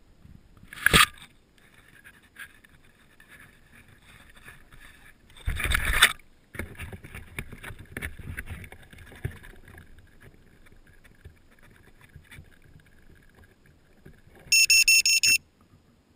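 Handling bumps and rubbing as the camera is moved and set down at ground level, with a brief loud knock about a second in and a longer loud scuffle about six seconds in. Near the end comes a quick run of high electronic beeps lasting under a second.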